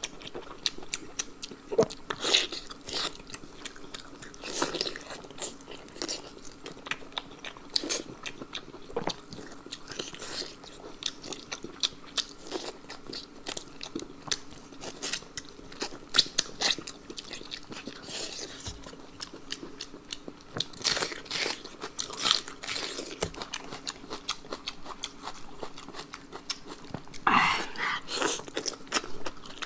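A person chewing and biting food close to the microphone, with a steady run of short crunchy, clicking chews and a louder burst of crunching near the end.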